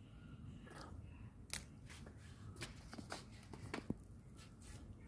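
Faint scattered clicks and rustles, about eight of them at uneven intervals, over a low steady hum.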